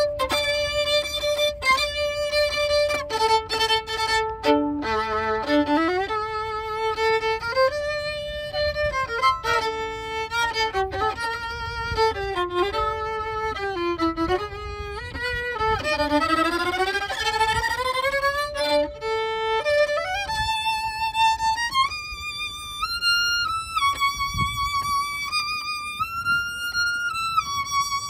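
Solo violin playing a melody, with vibrato on the held notes and a quick rising run of notes about two-thirds of the way through.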